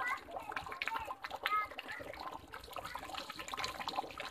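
Yak-meat and potato curry simmering in a large metal pot, its thick gravy bubbling with a dense run of small pops and ticks. A couple of brief high-pitched cries sound near the start and about a second and a half in.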